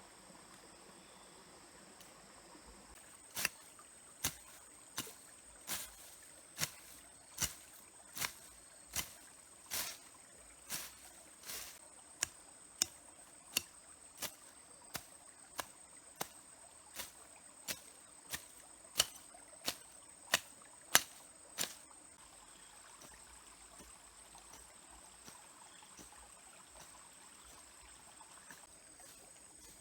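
A run of about two dozen sharp knocks at an even pace, roughly one every three-quarters of a second, starting a few seconds in and stopping about two-thirds of the way through, over a steady high-pitched whine.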